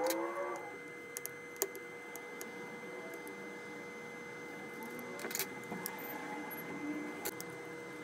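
Scattered small clicks and taps as parts and tools are handled inside an opened iPhone 11, over a steady electrical hum. A brief wavering pitched sound comes right at the start.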